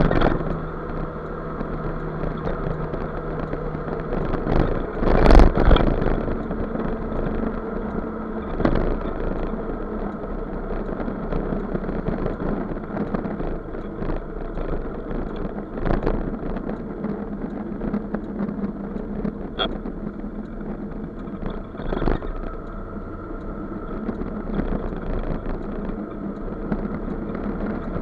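Scooter engine running steadily at cruising speed under road and wind noise, heard from on the scooter. A few short thumps break through, the loudest about five seconds in, with smaller ones at about nine, sixteen and twenty-two seconds.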